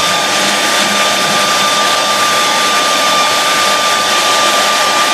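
Handheld hair dryer blowing steadily on a canvas, a rush of air with a thin steady whine, drying wet acrylic paint.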